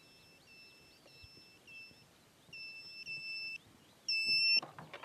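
Electronic beeper giving a series of short, high-pitched beeps, faint at first and much louder from about halfway through.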